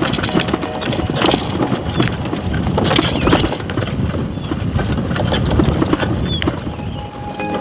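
Motorcycle engine running at low speed on a rough, rocky dirt track, with frequent knocks and rattles as the bike jolts over the bumps.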